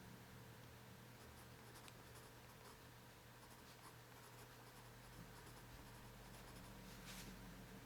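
Faint scratching of a drawing tool doodling on paper, light irregular strokes with one louder stroke near the end.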